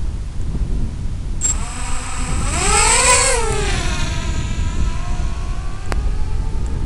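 Brushless motors of a 4S FPV quadcopter whining. The pitch rises to a peak about three seconds in, then falls and settles into a steadier whine, over a steady rumble of wind on the onboard microphone.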